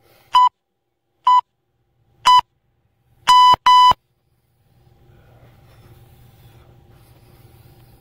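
Electronic interval-timer beeps: three short beeps about a second apart, then two longer beeps in quick succession. This is the countdown marking the end of a 10-second rest and the start of a 20-second Tabata work interval.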